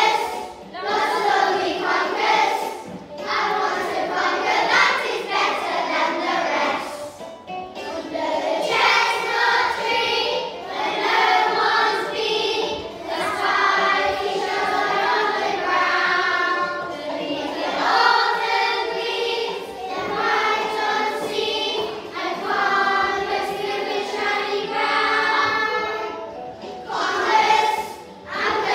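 A group of primary-school children singing a song together, in phrases with short breaks between them.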